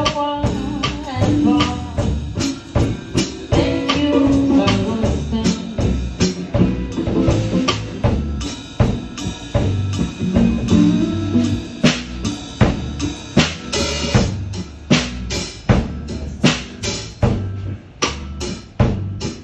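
Band music with a drum kit keeping a steady beat over bass and other pitched instruments, the drum strikes growing sharper and more prominent in the second half.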